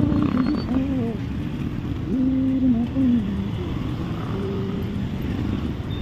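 Motorcycle riding in city traffic: steady engine and road noise, with a person's voice rising and falling over it a few times without clear words.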